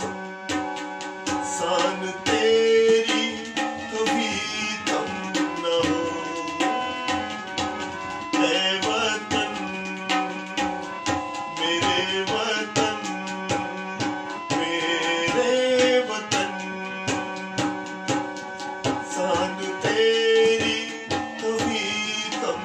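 Harmonium and tabla playing an instrumental passage together. The harmonium holds sustained reedy notes and chords while the tabla keeps a quick, steady rhythm of strokes over it.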